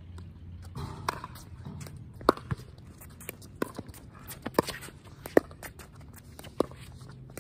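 Pickleball rally: paddles hitting a hard plastic pickleball, with sharp, hollow pops coming roughly once a second, some paired closely as ball and bounce, and shoes shuffling on the hard court between them.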